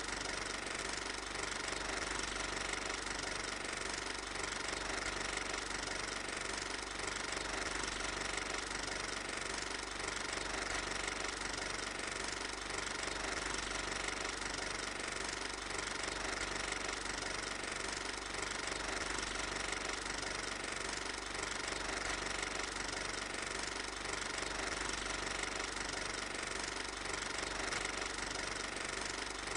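Film projector running steadily, its motor whirring with a light mechanical rattle that does not change at all through the shots.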